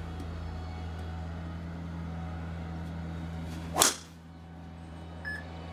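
Golf driver swung at full speed, whooshing through the air and striking the ball with one sharp, loud crack about four seconds in.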